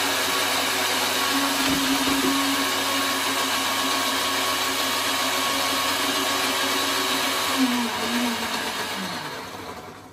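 Electric kitchen blender running steadily at high speed, then switched off near the end, its motor pitch falling as it winds down.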